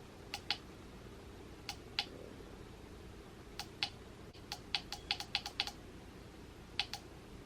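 Buttons on a Heimvision sunrise alarm clock clicking as they are pressed: sharp clicks, mostly in pairs, with a quick run of about eight clicks near the middle.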